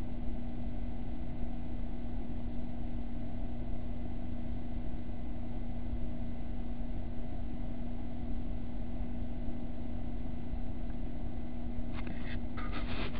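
A steady low mechanical hum with one constant low tone, like a machine or fan running, with a few brief handling noises near the end.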